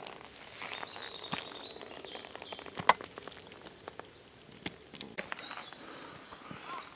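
Wild birds calling, several short whistled phrases, with scattered sharp clicks and knocks close by, the sharpest about three seconds in.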